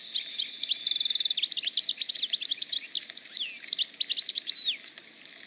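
Small songbirds chirping and singing in a busy chorus of quick high notes and short falling whistles, with one rapid trill about a second in. The chorus drops away shortly before the end.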